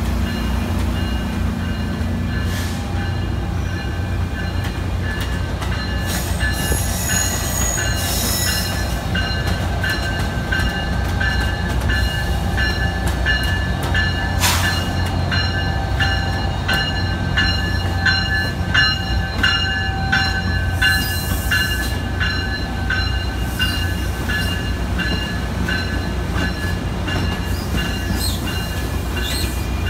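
NJ Transit commuter trains, bi-level coaches and an electric multiple unit, rolling slowly through the terminal's switches: a steady low rumble with wheels squealing in high held tones on the curves, and scattered clacks over the rail joints and frogs. The squealing grows thicker after about ten seconds, with short piercing squeals at about seven seconds and again near twenty-one.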